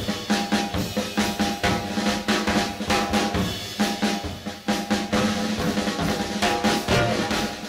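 1960s rock-and-roll drum instrumental: a drum kit with snare and bass drum playing a busy, driving pattern with rolls, over sustained pitched instruments.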